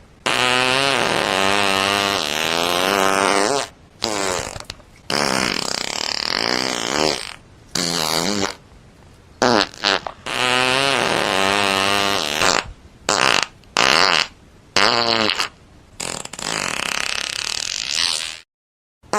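A string of about a dozen fart sounds, separated by short pauses. Some are long, wavering blasts of two to three seconds that sag in pitch at the end; others are short pops.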